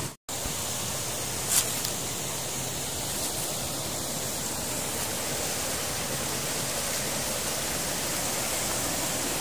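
Steady, even hiss with no clear pitch, cutting out for an instant right at the start, with a single short click about a second and a half in.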